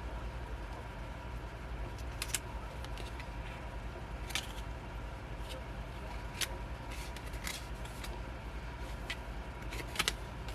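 Handling noise from unboxing a K-pop album: small cardboard and plastic album items being picked up and set down, making a few scattered light clicks and rustles over a steady low hum.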